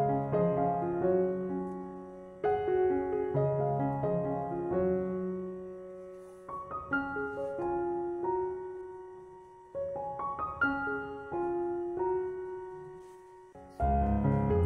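Background piano music: single notes and chords that ring and fade away, with a fuller, louder passage with deeper bass coming in near the end.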